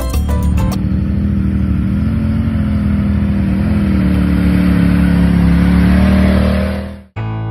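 Polaris side-by-side UTV engine running under load as the vehicle crawls over rocks: a steady drone that rises slightly in pitch, then fades out about seven seconds in.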